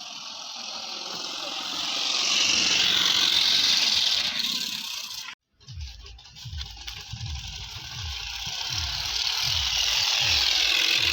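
Plastic-bottle noisemaker taped to a bicycle, rattled fast by the turning wheel into a buzzing, motorbike-like sound. It grows louder as the bike picks up speed, cuts off suddenly about five and a half seconds in, then starts again and builds.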